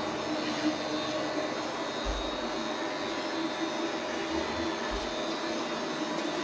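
Robot vacuum cleaner running with a steady whir of its fan and brushes, with a few low thumps about two seconds in and again near five seconds.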